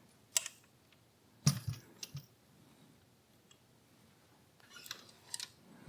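Scattered sharp metallic clicks and clinks of a wrench being handled and set on the sprinkler's taped, threaded hose connector to tighten it. There are a few knocks in the first two seconds, a quiet stretch, then a small cluster of clicks near the end.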